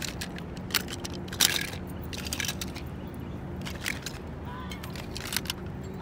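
Small diecast toy cars clicking and clattering as they are picked through by hand, with one louder clack about one and a half seconds in. A steady low hum runs underneath.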